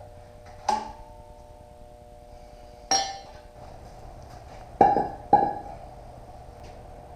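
Metal exhaust tubing clinking as pieces are test-fitted together: four sharp metallic clinks, the first leaving a ringing tone that hangs for a couple of seconds, and the last two close together.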